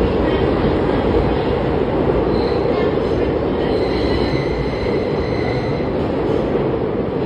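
Subway train running through a tunnel, heard from inside the car: a steady, loud rumble of wheels on rail, with a faint high wheel squeal in the middle.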